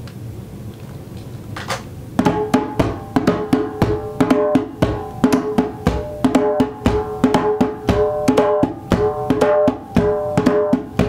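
A djembe played by hand: after a couple of light taps, a quick, steady rhythm of strokes starts about two seconds in, each stroke ringing with a short tone.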